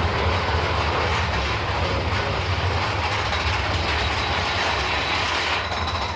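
Big Thunder Mountain Railroad mine-train roller coaster running along its track: a steady low rumble under loud rushing noise, the high part of the rushing easing off near the end.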